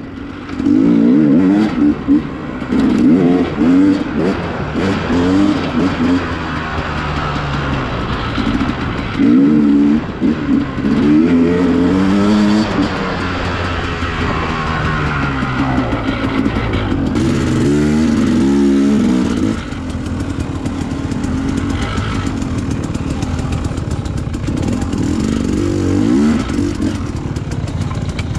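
Dirt bike engine revving up and down in repeated short bursts of throttle while riding singletrack. It settles to lower, steadier running about two-thirds of the way through.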